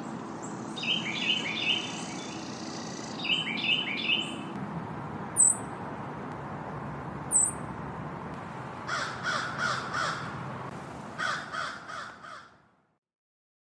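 Outdoor bird chorus over a steady background hiss. Quick trilled phrases open it, two short high chirps follow, and near the end come two bursts of rough repeated calls. The whole recording fades out near the end.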